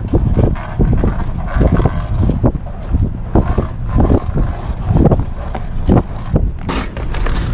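Wind buffeting the microphone and the Folkboat's mainsail flapping and rustling in irregular bursts as it is hoisted, with the small outboard motor running underneath.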